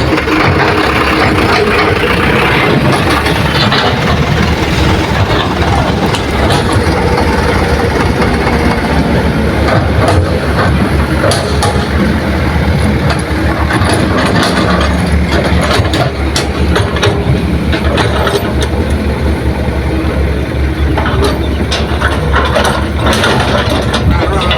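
Heavy diesel engines of excavators and a dump truck running steadily at an earthmoving site, with scattered sharp knocks and clanks throughout.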